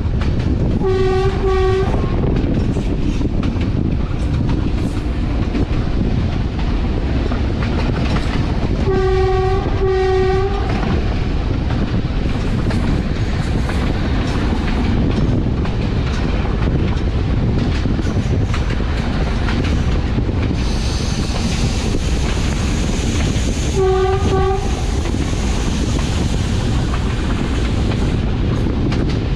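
GE D10E-250 diesel locomotive's horn sounding three pairs of short blasts on one note: about a second in, about nine seconds in (the longest pair), and about twenty-four seconds in. Underneath runs the steady rumble of the locomotive and its wheels on the track.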